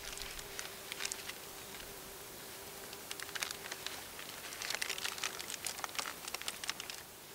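Paper pollination bag crinkling and rustling in short irregular bursts as it is gathered around a corn cob and clipped shut with a wooden clothespin, over a faint steady hum.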